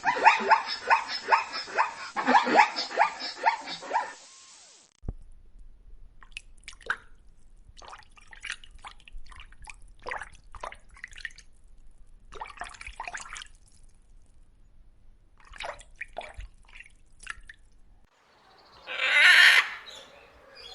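A run of animal sound clips: loud, rapidly repeated animal calls for about four seconds, then a long stretch of faint, irregular clicking and dripping, then a loud drawn-out call like a horse's whinny near the end.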